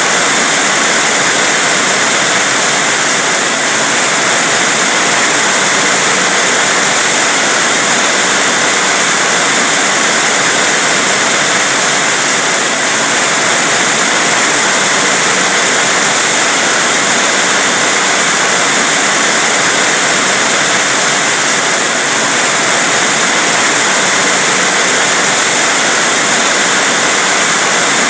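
Heavy rain falling as a steady, even hiss with no pauses or single drops standing out.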